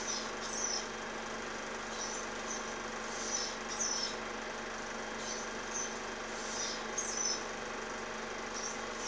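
Osprey calling: short bursts of high, thin chirps, coming in pairs every second and a half or so, over the steady hum and hiss of an old film soundtrack.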